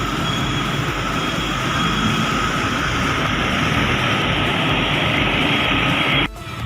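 Steady road traffic noise from passing vehicles, which cuts off abruptly near the end.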